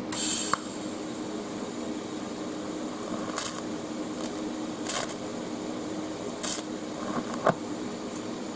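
TIG welding arc from a Parweld XDI 201 making a tack weld that joins steel to cast iron. A steady electrical hum runs throughout, with a short hiss as the arc strikes at the start and a few brief crackling hisses during the weld.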